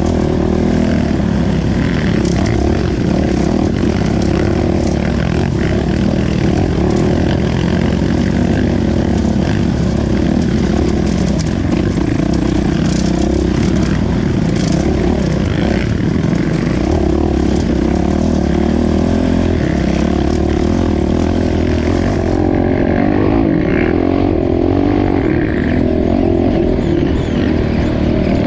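Off-road dirt bike engine running while ridden along a dirt trail, loud and continuous, its note shifting up and down with the throttle.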